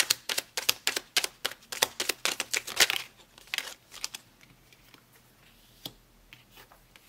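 Tarot deck being shuffled by hand: a quick run of card snaps for about three seconds, then a few separate soft clicks as cards are laid down onto the cloth.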